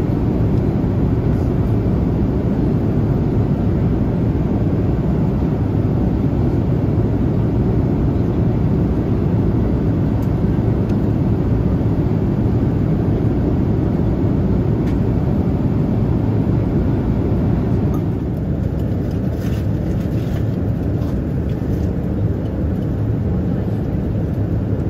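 Steady in-flight cabin noise of a Boeing 787-8, a loud even rush of airflow and engine noise heard from a passenger seat. The rush drops a little about two-thirds of the way through, and a few light clicks follow.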